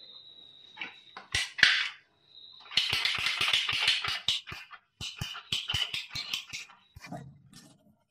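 Ratcheting plastic-pipe cutter working through a white PPR water pipe: a run of sharp clicks and crackling as the handle is squeezed and the blade bites into the plastic.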